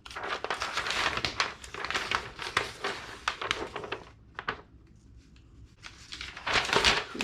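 Crinkling and rustling of handled paper and packaging in a small room: a dense run of rustles and light clicks, a quieter stretch with a few ticks, then another short burst of rustling near the end.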